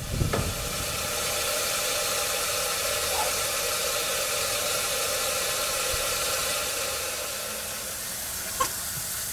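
Water from a garden hose running through the float valve of a plastic chicken trough waterer as the trough fills: a steady hiss with faint steady tones in it, easing slightly near the end.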